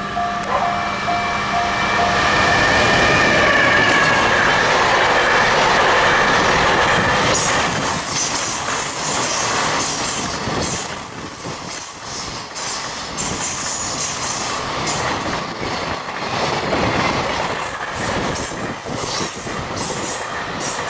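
EF210 electric locomotive passing close with a steady whine, followed by a long freight train of container wagons rushing by, their wheels clacking over the rail joints in a fast rhythm with some high squeal. A repeating bell-like beeping fades out in the first couple of seconds.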